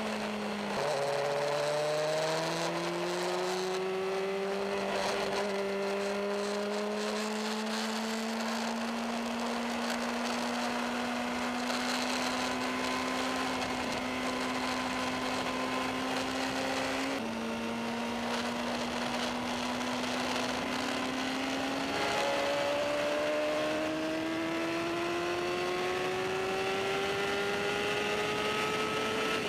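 Suzuki GSX-R750 K5's inline-four engine heard onboard at speed. Its pitch drops sharply about a second in, then climbs slowly for much of the time, dips briefly in the middle and climbs again near the end.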